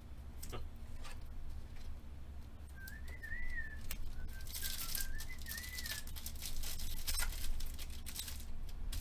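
A person whistling a short, wavering tune of a few notes, starting about three seconds in and lasting about three seconds. From about halfway on, a foil trading-card pack is torn open and crinkled in the hands, in several rustling bursts.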